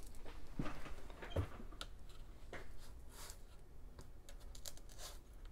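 Scattered light clicks and taps from handling an opened MacBook Air, its metal case and parts knocking softly against the bench and hands.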